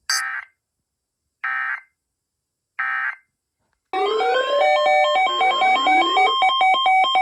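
Three short bursts of Emergency Alert System digital data, the SAME end-of-message code, each under half a second and about 1.4 seconds apart. About four seconds in, a loud synthesized electronic alarm tone starts: rising sweeps, then two alternating pitches pulsing rapidly.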